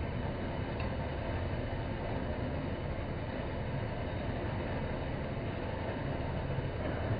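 Horizontal metal-cutting band saw running steadily, its blade cutting through steel tubing clamped in the vise, with an even low hum and hiss.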